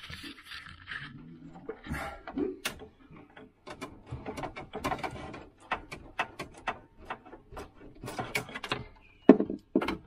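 Fibreglass cable rods being handled and pushed through a small hole in the wall: irregular clicks, taps and scraping, with two sharp knocks near the end.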